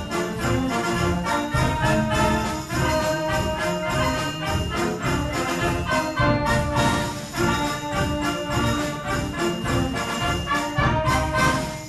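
Band music with brass to the fore, playing a Christmas piece with sleigh bells shaking along in a steady beat.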